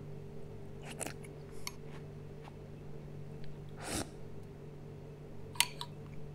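Metal spoon scraping and clinking in a ceramic bowl of cereal and milk, with a slurp from the tipped-up bowl about four seconds in and one sharp clink near the end, over a steady low hum.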